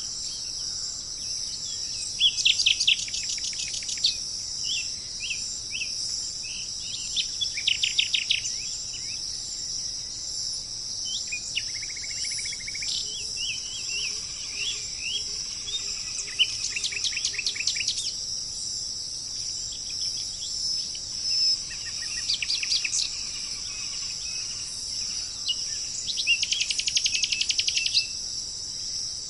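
Songbirds singing: short trilled phrases of rapidly repeated notes every few seconds, with scattered single chirps between them, over a steady high-pitched insect drone.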